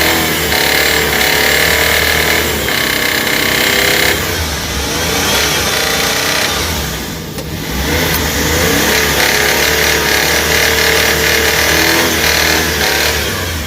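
Suzuki DA64's engine running and revved up and down twice. It has the knock from inside the engine that the mechanic puts down to worn main and connecting-rod bearings, calling for a general overhaul.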